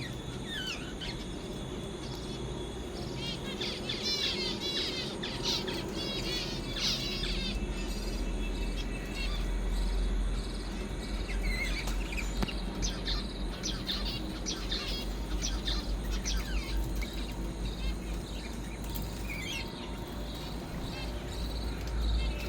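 A colony of zebra finches calling: many short, high chirps from several birds at once, thickest in two busy spells. A steady low hum runs underneath.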